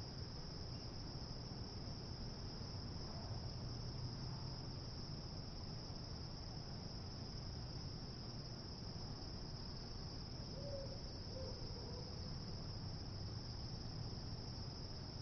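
Crickets chirping in one steady, high-pitched trill in a night ambience, over a low steady hum.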